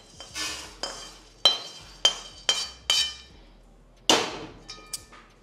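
Metal ladle scraping and tapping against a stainless steel kadai while emptying dry-roasted spices and lentils onto a plate: a few scrapes and a quick run of ringing metal clinks, with one more clink near the end.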